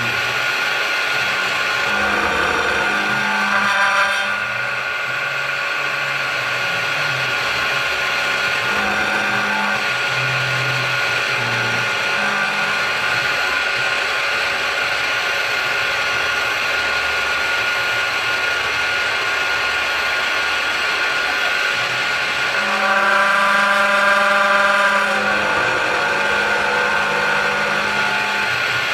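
Precision Matthews PM-727M CNC mill cutting metal angle with an end mill under coolant spray: a steady spindle and cutting noise with a constant high whine, while the stepper-driven axes hum at low pitches that step up and down as the feed changes. Twice, about two seconds in and again about 23 seconds in, a pitched ringing rises for a couple of seconds, the sign of the angle vibrating because it is only clamped in the vise.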